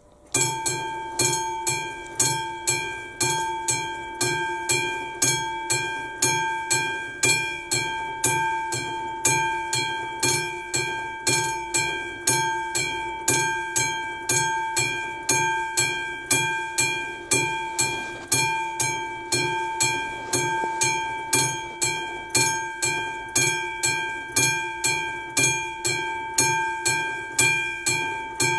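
Classic-type AŽD railway level-crossing bell starting up suddenly about half a second in, then ringing steadily at about two strikes a second, each strike ringing out with a clear metallic tone: the crossing's warning that a train is approaching.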